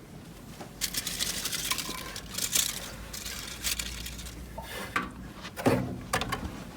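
Clinks and rustling as crumpled foil sweet wrappers on a dish are set into a microwave oven, with a crackly stretch of handling noise for a couple of seconds about a second in.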